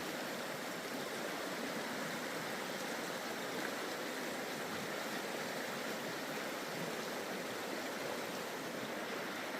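Steady rush of flowing creek water, an even noise that does not change.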